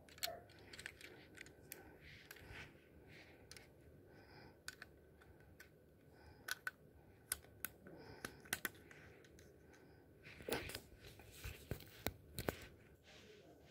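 LEGO Technic pieces being handled and pressed together: small, irregular plastic clicks and snaps, coming thicker near the end.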